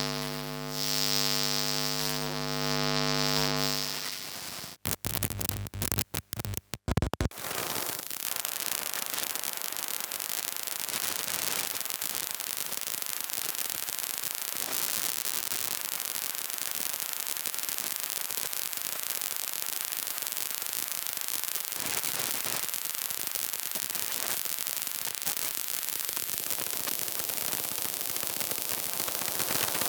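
Electromagnetic interference picked up by a coil pickup: a buzzing electrical hum with many overtones, which breaks up about four seconds in into a few seconds of stuttering clicks and dropouts, then turns into a steady hiss of static.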